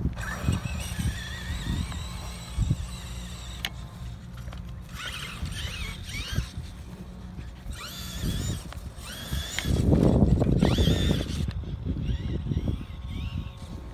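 Traxxas E-Maxx electric RC monster truck driving over grass, its motors whining up and down in pitch as the throttle is worked. About ten seconds in there is a louder rush of noise lasting a second or two.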